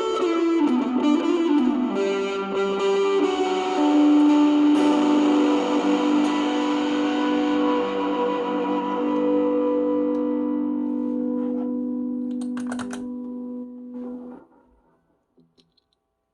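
Electric guitar played through distortion and overdrive pedals with hall reverb and delay: a few picked notes, then a chord left ringing and slowly fading for about ten seconds. It cuts off suddenly about two seconds before the end, leaving silence.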